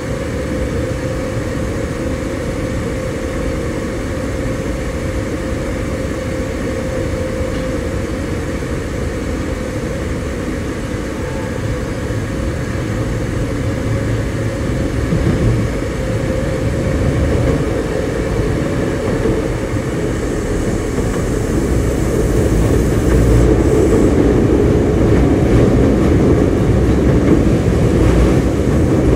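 Osaka Metro 22 series subway train running, heard from inside the car: a steady rumble of wheels and motors with a thin steady whine over the first third that fades away. The running noise grows louder from about two-thirds of the way in.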